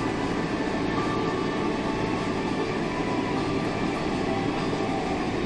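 Steady cabin noise of a jet airliner taxiing, heard from inside the cabin: the engines running and the wheels rumbling along the taxiway.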